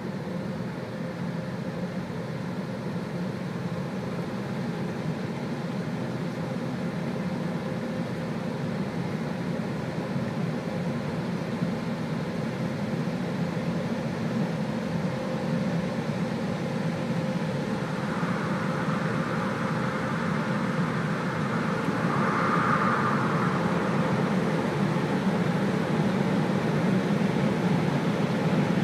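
Automatic car-wash machine running, a steady mechanical hum and rush heard from inside the car's cabin, getting louder in the last few seconds.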